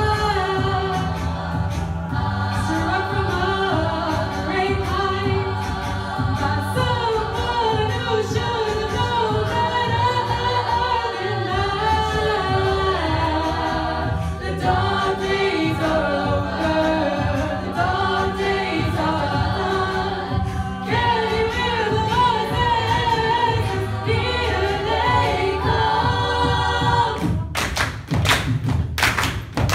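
A mixed high school a cappella choir singing into microphones, a female lead over sustained backing harmonies and a vocal bass line. About 27 seconds in the singing breaks off into rhythmic hand claps and thumps.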